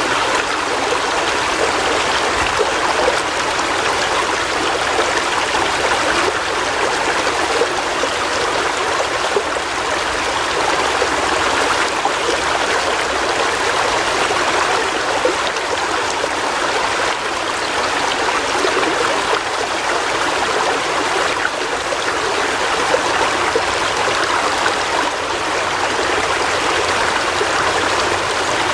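River water flowing and trickling over rocks: a steady rush with small gurgles and splashes and no low rumble.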